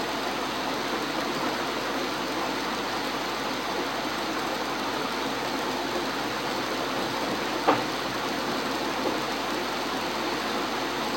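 Steady hiss of microphone background noise, with a single sharp computer-mouse click about eight seconds in.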